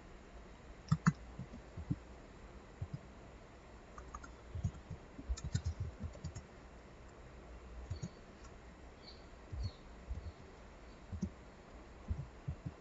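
Faint, scattered clicks of a computer mouse, irregularly spaced, with a quick cluster about five to six seconds in.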